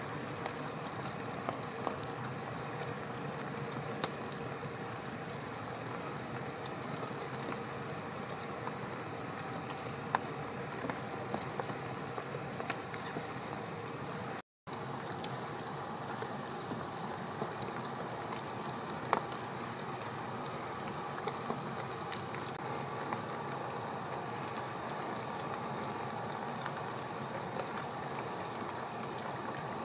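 Steady rain falling, an even hiss with scattered sharper drop ticks; the sound cuts out for an instant about halfway.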